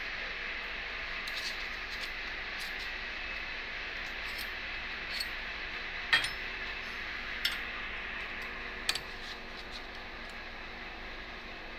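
PVC card stamping machine with a steady hiss and a string of sharp metallic clicks, roughly one every second or so, the loudest about six seconds in.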